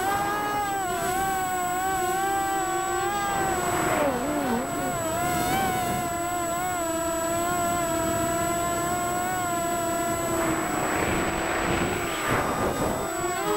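Small multirotor drone's electric motors and propellers whining, heard from the onboard camera. The pitch wavers and dips about four seconds in, holds steady for a few seconds, then turns rougher with rushing noise near the end as the drone skims the grass. A thin high tone sits underneath.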